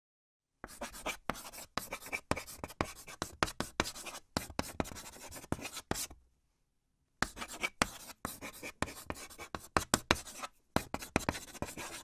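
Chalk writing on a chalkboard: quick scratching strokes and taps, starting about half a second in, with a pause of about a second just past the middle.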